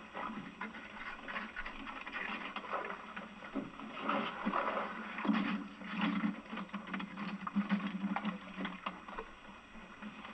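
Hand oyster tongs being worked over the side of a small boat: irregular knocking and clatter of the wooden shafts and shells, over a steady wash of water and wind.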